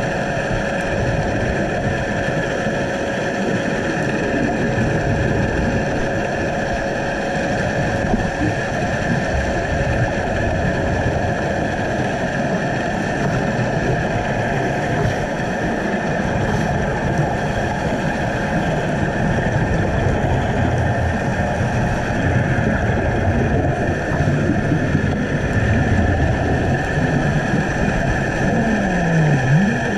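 Steady underwater rushing noise picked up through a GoPro's waterproof housing during a scuba dive, with a faint steady tone in the first half and a low hum that dips and rises in pitch near the end.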